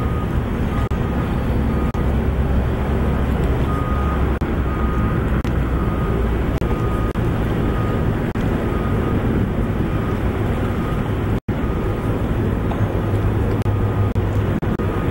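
Steady outdoor urban rumble of engines and traffic, with a faint backup alarm beeping about twice a second for most of the first nine seconds. The sound drops out for an instant about eleven seconds in, and a deeper hum follows.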